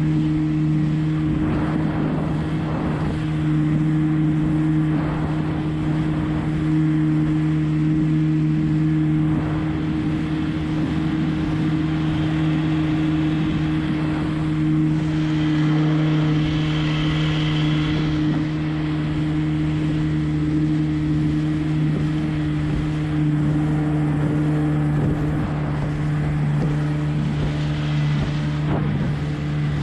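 A 20 hp Evinrude two-stroke outboard runs at steady cruising speed on a small hydroplane, its pitch held even throughout, under a hiss of water and spray rushing along the hull.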